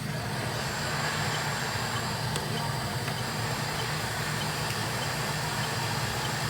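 Steady low hum with an airy hiss, like a small blower or fan motor running, such as a hot-air rework station at a repair bench.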